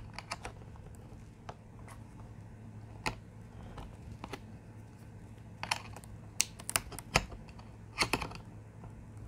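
Scattered small clicks and taps of hands handling a battery and LED leads behind a hand-held board, coming in quick clusters past the middle and near the end, over a faint steady low hum.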